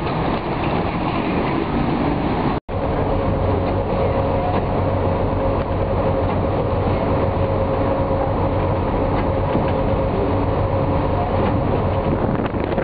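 Passenger ferry's engine droning steadily under way, heard from the open deck with wind and water rushing past. The sound drops out for an instant about two and a half seconds in.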